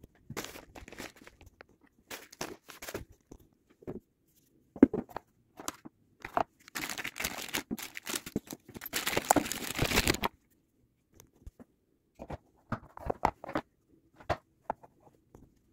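Plastic packaging bags crinkling and rustling in bursts as kit parts are unwrapped and handled, with the longest, densest crinkling in the middle, and small clicks and knocks in between.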